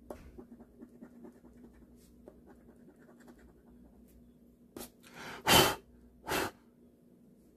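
A coin scraping the coating off a lottery scratch-off ticket in quick small ticks. Then three short puffs of breath, the loudest about halfway through, blown across the ticket to clear the scratched-off flakes.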